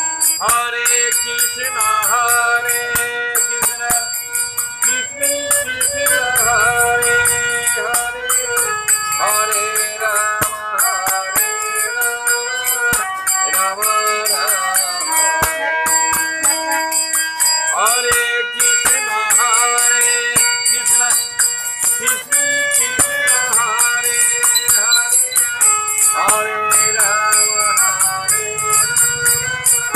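Devotional Krishna song: harmonium playing held chords under a sung melody, with small brass hand cymbals (manjira) struck in a quick, steady rhythm.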